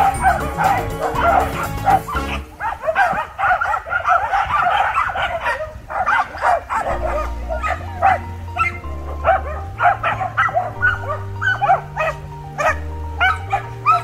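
A pack of Welsh Corgis barking excitedly: many short barks overlap at first, then thin out to separate barks. Background music with a low bass line plays underneath, dropping out for a few seconds in the middle.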